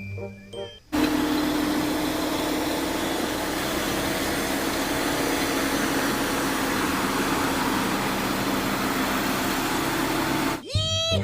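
Crane truck engine running: a steady, even mechanical noise with a low hum. It starts abruptly about a second in and cuts off suddenly near the end.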